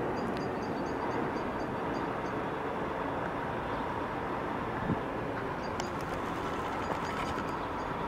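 Electric train approaching along the line, a steady rumbling run, with faint short high chirps repeating several times a second near the start and again in the last couple of seconds.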